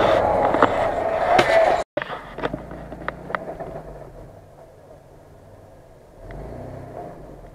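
Mitsubishi Pajero SUV engine running loud and close, with clicks, for the first two seconds before the sound cuts off abruptly. Another Pajero's engine follows, faint and low, and rises briefly near the end.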